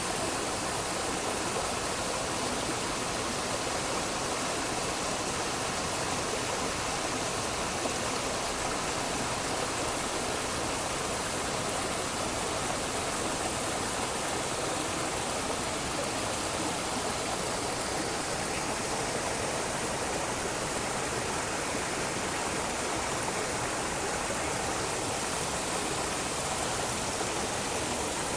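Running water rushing steadily, an even hiss of flowing water with no change in level.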